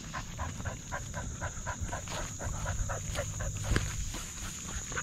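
A running dog panting fast and evenly, about four to five breaths a second, heard up close through a camera on its harness, over a low rumble of wind and jostling.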